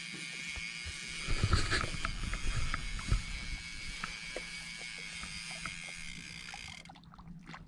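A cluster of irregular knocks and clicks, loudest from about one to three seconds in, over a steady drone that cuts off near the end.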